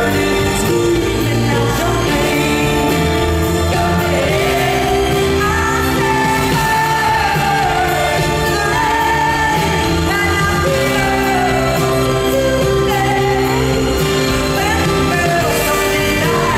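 Female singer singing a pop song live into a handheld microphone over a full band, with held notes and glides, heard through a large arena's sound system.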